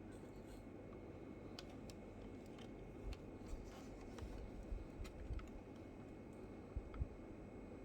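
Faint scattered clicks and a few soft low thumps of a diecast model car and its plastic packaging being handled, over a steady hiss. The thumps cluster in the second half.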